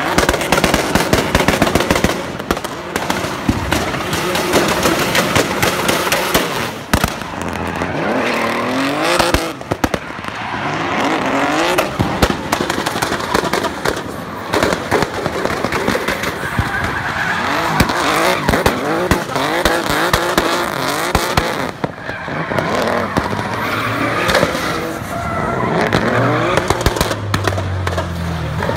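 Nissan 350Z drift car with a swapped BMW S50 inline-six, revving up and down repeatedly as it drifts, with tyres squealing and skidding. Many sharp pops and bangs run through it, from the exhaust.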